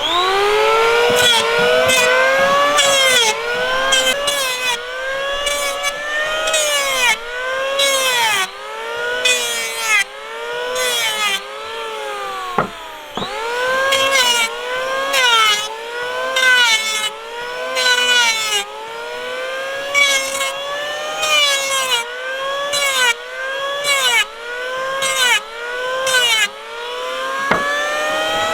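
Power tool working wood, its motor pitch dropping under load and climbing back about once a second in a steady repeating rhythm, with bursts of cutting noise.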